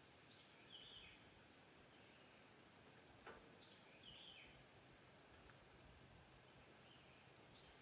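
Faint steady chorus of insects, such as crickets or katydids, shrilling high. A short chirp recurs about every three seconds.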